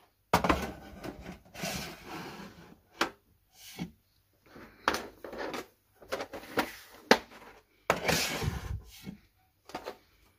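Pencil sets and cases being handled and pushed back onto a wooden shelf: irregular knocks and clatters against the wood, with sliding, rubbing scrapes between them.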